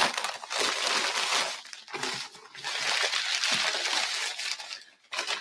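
Sheet of packing paper being unwrapped from a beer can and crumpled by hand, a dense crinkling that comes in two long stretches with a short lull between them.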